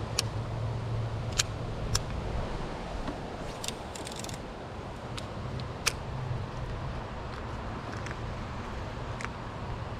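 A motor hums steadily and low, with sharp clicks and ticks scattered over it.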